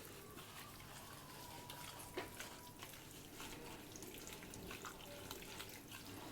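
Faint wet squishing and small clicks of boneless chicken being mixed into a marinade of egg, spices and cornflour in a bowl, with one sharper tick about two seconds in.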